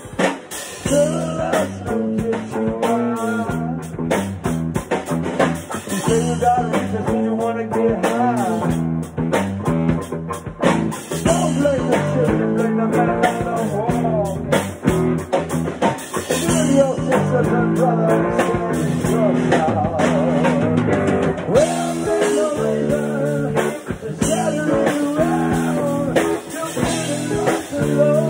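A small band playing a song: guitar and drum kit with cymbals, with singing over them.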